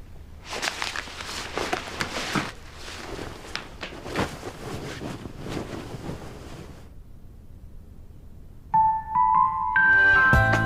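Soft, irregular rustling and scuffing noises, then background music with piano-like notes comes in about nine seconds in and grows louder.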